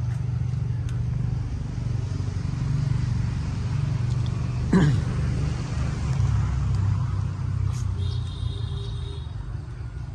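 Steady low mechanical rumble like a running engine, with a short, sharp falling squeal about five seconds in.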